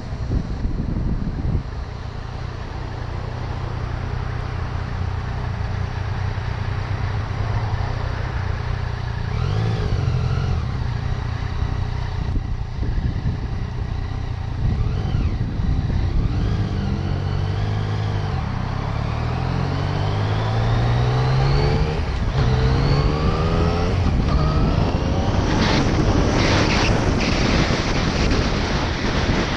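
Yamaha FZ-09's 847 cc inline-three engine running low and steady in slow traffic, then accelerating away through the gears in a series of rising revs, each broken off by a shift. Wind buffeting the helmet-mounted microphone grows loud as speed builds near the end.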